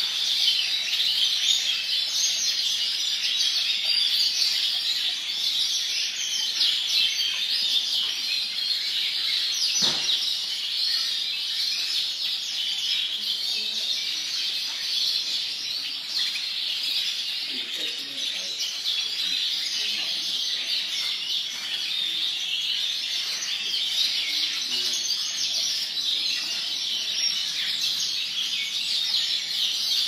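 Many caged Yorkshire canaries chirping and singing together in a dense, unbroken high chorus. One sharp click a little under ten seconds in.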